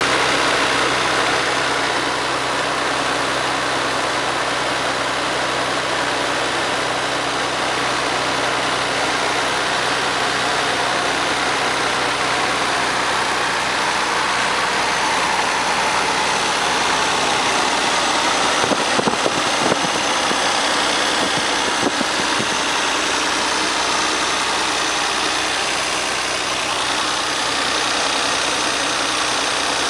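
Stock Nissan RB26DETT twin-turbo straight-six idling steadily, with a few short knocks about two-thirds of the way in. The owner was listening for an odd noise near the fan, which did not show up this time.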